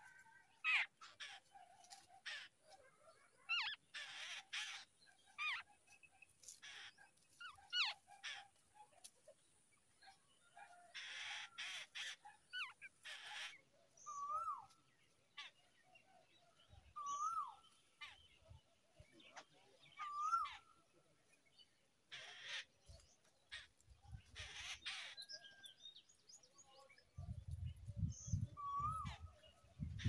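Birds calling: scattered harsh calls and chirps, and from about halfway a short whistled note that dips and rises, repeated about every three seconds. A low rumbling noise comes in near the end.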